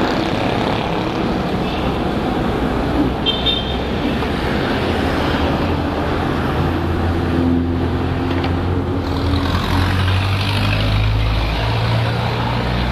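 Motorcycle engine running while riding through city traffic, with cars and a pickup truck passing close by; the low engine drone grows stronger in the second half. A short high beep sounds about three seconds in.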